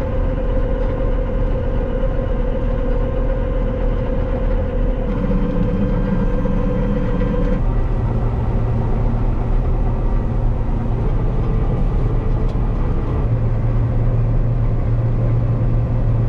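John Deere combine harvester engine running steadily. A steady higher whine stops about seven and a half seconds in, leaving a lower drone.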